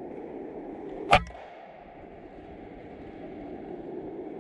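A single sharp crack of a pre-charged pneumatic .22 air rifle firing about a second in, followed a moment later by a faint tick, over a steady background noise.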